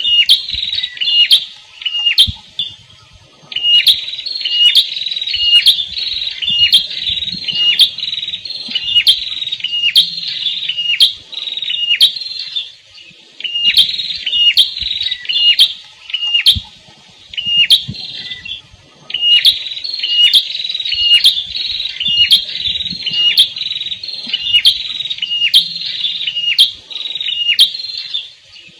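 A small songbird known in Indonesia as the prenjak kepala merah (red-headed prenjak) calling over and over in quick, rapid-fire phrases of sharp chirps, about two notes a second, with a few short breaks.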